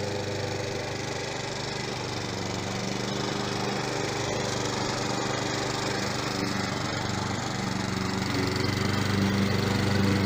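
Remote-controlled lawn mower on rubber tracks running, its engine a steady hum over a dense rough noise, getting gradually louder through the last few seconds.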